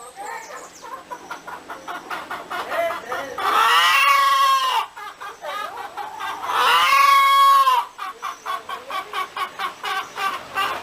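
A hen cackling: a run of quick clucks, about four a second, broken twice by a long drawn-out call that rises and falls in pitch, each lasting about a second.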